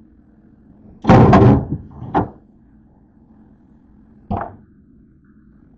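Things being handled and set down on refrigerator shelves: a loud clatter about a second in, a short knock just after two seconds, and another knock a little past four seconds.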